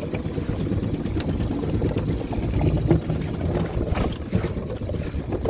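Small dinghy outboard motor running slowly as the dinghy creeps in alongside a moored houseboat. Wind buffets the microphone, and there are a few light knocks.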